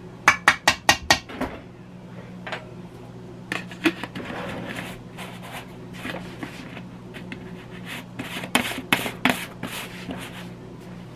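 Kitchen utensils and a plastic bouillon tub being handled. There is a quick run of about six sharp taps just after the start, rubbing and scraping a few seconds in, and another run of sharp clicks near the end.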